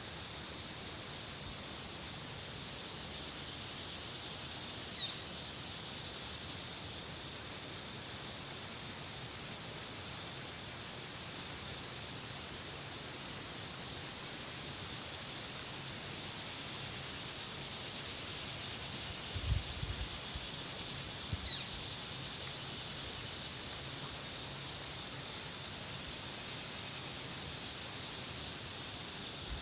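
Steady, high-pitched chorus of insects around a pond: a constant buzzing trill with a higher layer that swells and fades every second or two. A low thump comes about two-thirds of the way in.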